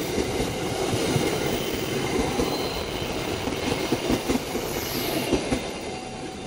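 Passenger train coaches rolling past close by, a steady rumble with their wheels clacking on the rails. It eases off near the end as the last coach goes by.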